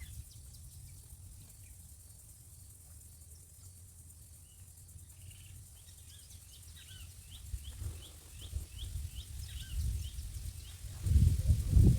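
A bird repeats short high chirps, about two or three a second, for several seconds over a faint low outdoor rumble. A loud low rumble comes in near the end.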